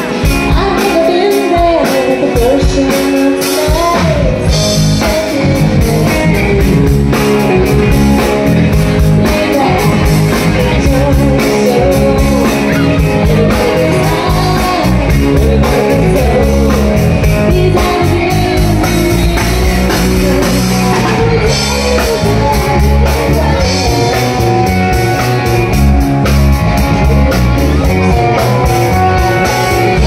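Live rock band: a woman singing over electric guitar. The full band, with drum kit and a second electric guitar, comes in about four seconds in.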